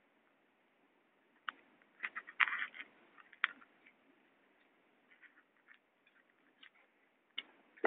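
Scattered clicks and short scraping rattles, the loudest cluster about two and a half seconds in, with a few fainter ticks through the middle and another click near the end.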